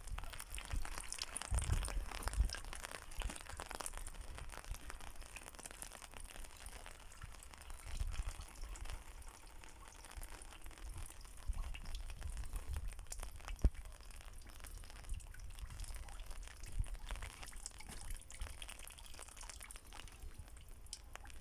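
Rain pattering and dripping during a thunderstorm, with occasional low rumbles and one sharp click about two-thirds of the way through.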